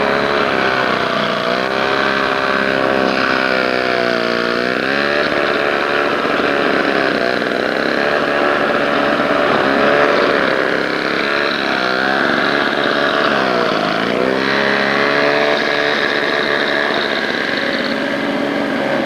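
Snowblower's small gasoline engine running steadily, its pitch dipping and recovering twice, about four and a half seconds in and again around fourteen seconds, as it bogs under a load of snow.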